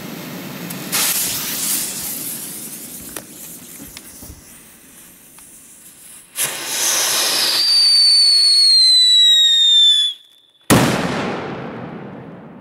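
Large firecracker burning on the ground: a brief hiss about a second in, then a loud hiss with a whistle falling slowly in pitch for about three seconds. It cuts out, and a moment later a single loud bang dies away.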